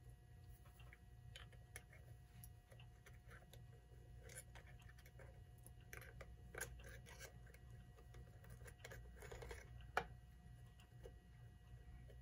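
Faint, scattered light clicks and taps of small clock parts being handled as the outer ring of a 1930s Telechron Selector clock is worked loose and lifted off its face, with one sharper click about ten seconds in. Underneath is a faint, steady low hum.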